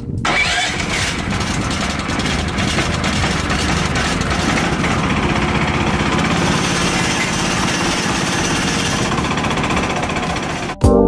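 An engine running steadily and loudly. It cuts off abruptly near the end.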